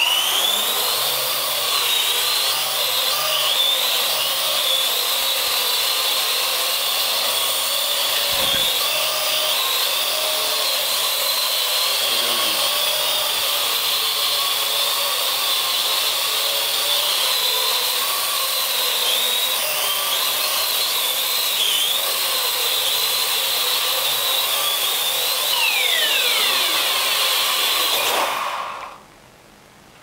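Parrot AR.Drone quadcopter's four electric rotors whining steadily in flight, the pitch wavering as it manoeuvres. About 26 seconds in the pitch slides down as it lands, and the motors stop abruptly a second or two before the end.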